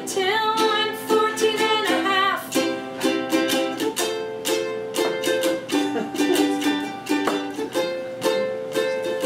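Ukulele strummed in a steady rhythm, accompanying a sung melody with long held notes.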